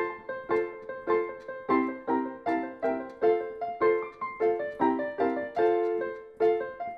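Background piano music: a steady run of struck notes and chords, each fading after it is played.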